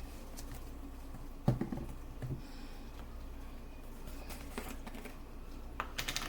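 Small kitchen handling noises, with scattered light knocks and clicks as containers are picked up and set down. A sharper knock comes about a second and a half in. A low steady hum runs underneath.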